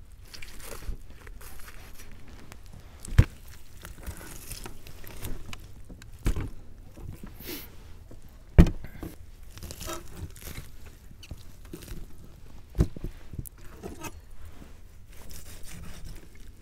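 A few sharp knocks, the loudest about halfway through, with faint scraping and rustling between them, as the pit-baked lamb ribs are handled and cut into for tasting.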